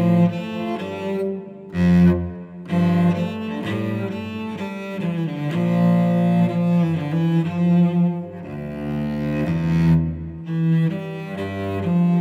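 Solo cello bowed, a run of sustained low notes changing every second or so, with a couple of brief breaks about two seconds in.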